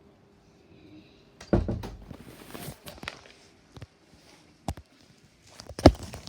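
Several thumps and knocks from objects being handled and set down, with some rustling between them. The loudest thump comes about a second and a half in, and another sharp knock comes near the end.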